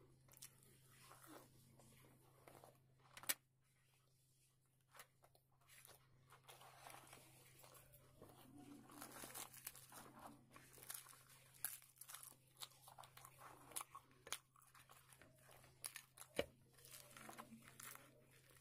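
Faint close-up eating sounds: chewing luchi (deep-fried puffed bread) with chickpea curry, with sharp wet mouth clicks, the loudest about three seconds in. Around the middle, the crisp bread is torn apart by hand.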